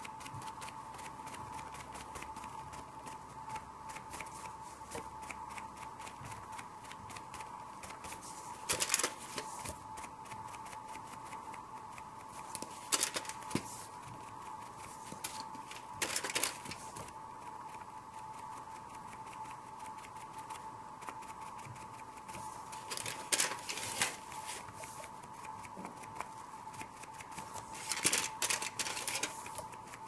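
Crumpled tissue dabbing acrylic paint onto a painting surface: a quick run of soft taps, with about five louder flurries of tapping. A steady high hum runs underneath.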